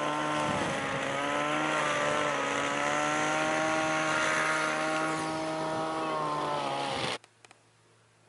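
Outdoor fog misting system running: a steady mechanical hum with several held tones, over the hiss of spraying water mist. It cuts off suddenly about seven seconds in.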